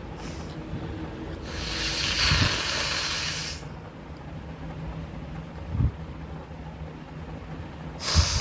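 A person blowing their nose hard into a handkerchief: one long forceful blow of about two seconds, then a short one near the end. A dull thump comes about halfway through.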